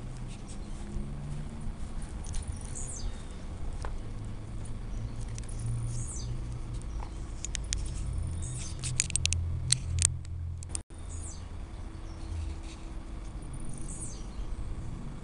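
Outdoor garden ambience: short high bird chirps now and then over a low rumble, with a burst of quick chirps and clicks about nine to ten seconds in.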